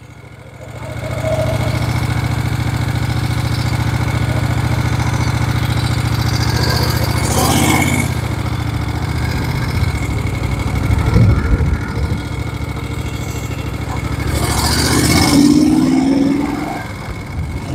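Moto Guzzi Eldorado's big-bore (about 1000cc) V-twin engine. It gets louder about a second in as the motorcycle pulls away, then runs steadily, and its note rises near the end.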